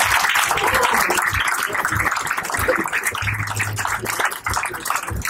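Audience applauding, the clapping gradually thinning out.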